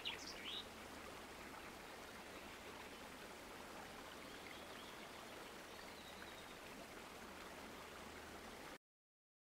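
Faint, steady outdoor background noise, an even hiss, with a bird's quick run of high chirps in the first half second. The sound cuts off abruptly about a second before the end.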